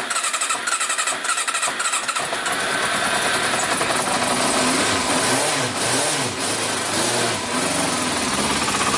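Yamaha Diversion's air-cooled four-cylinder engine turning over on the electric starter, catching about two seconds in on partial choke. It then runs with the revs rising and falling a few times before settling to a steady idle.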